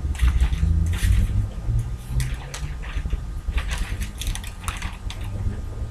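Newspaper sheets rustling and crackling as they are handled and opened out, in a run of short, irregular crinkles over a low steady hum.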